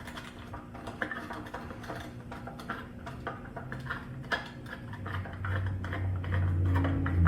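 Small metallic clicks and clinks of hand work as the air cleaner is taken off an old mower's small engine. A low hum builds about two-thirds of the way in and is the loudest sound near the end.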